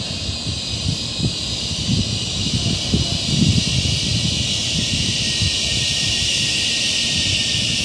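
Outdoor ambience with wind buffeting the microphone in irregular low gusts over a steady high hiss.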